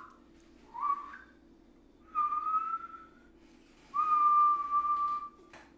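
A person whistling through puckered lips with the tongue held low in the mouth. It makes three notes: a short rising chirp, then a held note, then a longer steady note, with a small click near the end.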